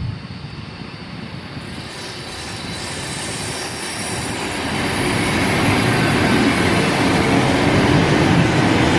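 ED4M electric multiple unit pulling away from a station and passing close by, its running noise growing steadily louder as the cab goes past and the carriages roll on.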